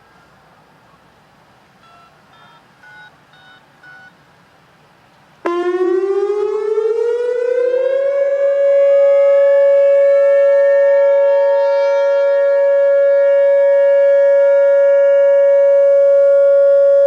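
Whelen WPS-2910 electronic outdoor warning siren sounding its Alert signal in a test: it comes on suddenly about five seconds in, rises in pitch for a couple of seconds, then holds one steady, loud tone. A few short beeps sound just before it starts.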